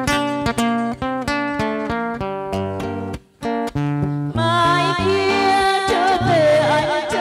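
Acoustic guitar picking a melody note by note, with a brief break about three seconds in. About four and a half seconds in, a woman's voice comes in singing with a wavering vibrato over the guitar.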